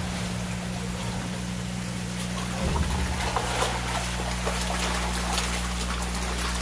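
A crowd of koi splashing at the water's surface as they feed, a flurry of short splashes starting about two and a half seconds in, over steadily running water and a low steady hum.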